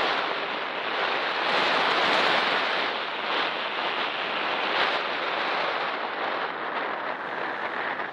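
Steady rushing and buffeting of wind on the microphone, with no clear engine note standing out.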